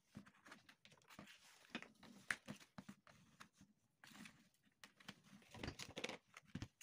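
Faint rustling and scattered small clicks of insulated wire leads being handled and twisted together by hand.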